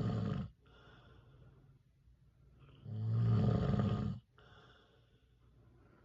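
A man snoring in his sleep. One loud snore ends about half a second in and another comes about three seconds in, lasting over a second, with quiet breathing between them.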